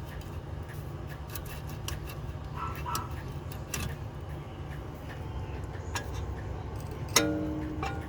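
Scattered light metallic clicks and taps as a brake caliper is worked off the rotor by hand, over a steady low hum. About seven seconds in, a brief louder metallic ring-scrape.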